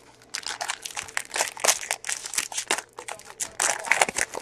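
Foil trading-card pack wrapper being torn open and crinkled by hand: a quick, irregular run of crackles and rustles, loudest near the end.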